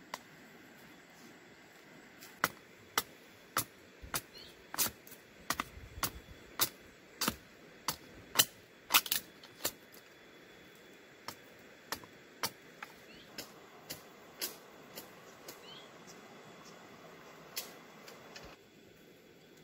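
A series of sharp knocks, evenly paced at about one and a half a second for several seconds, then slower, sparser and softer.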